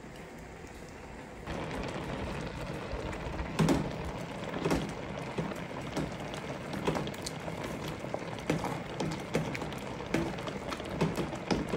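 Raspberries bubbling and crackling as they cook in a stainless-steel pot, with a bean masher squelching through the fruit and knocking against the pot at irregular intervals. The bubbling is quieter for about the first second and a half, then louder.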